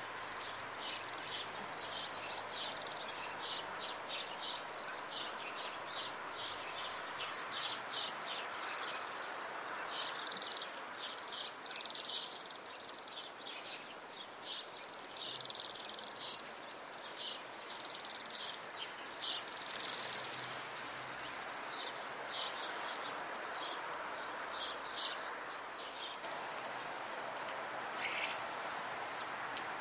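Bohemian waxwings calling: many high, thin trilling calls, overlapping thickly about halfway through and thinning out near the end, over steady background noise.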